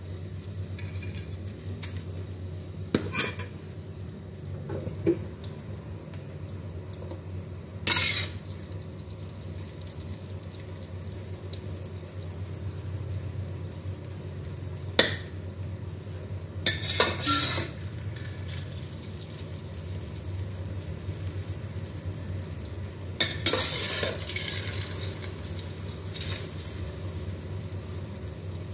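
Beaten eggs sizzling in hot oil in a steel wok, with a steady low hum underneath. A steel wok spatula scrapes and knocks against the pan five or six times, in short sharp strokes spread through.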